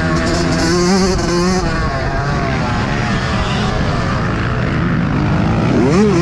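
Yamaha YZ125 two-stroke single-cylinder motocross engine, heard on board while riding. The engine note holds and wavers with the throttle, turns rougher and noisier through the middle, then rises again as it revs up near the end.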